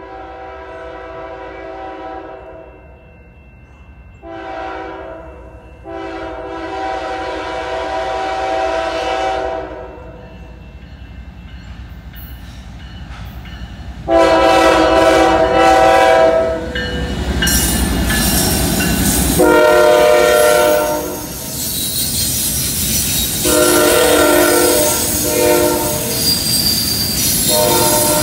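Diesel freight locomotive horn sounding a series of long and short blasts as the train approaches, louder each time. The lead locomotives pass about 17 seconds in with a rumble of engines. Then the intermodal well cars roll by with high wheel squeal on the curve, while horn blasts keep sounding.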